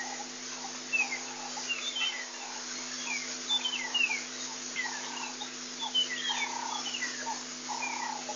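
Birds calling in the bush: a run of short, downward-sliding chirps, several a second, mixed with short lower notes, over a steady hiss and low hum.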